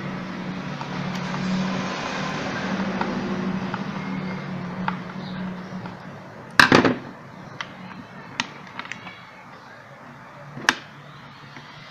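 A steady low hum that fades away over the first six seconds, then a loud clatter and a few sharp clicks of small plastic parts and screws being handled while the steam-iron station's housing is screwed back together.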